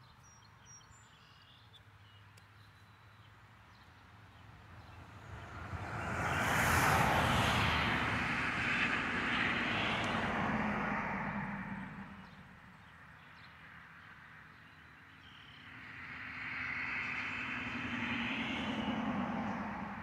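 Road vehicles passing by: a loud rush of tyre and engine noise swells about six seconds in and fades away by twelve seconds, then a second, quieter vehicle, a minivan, passes near the end.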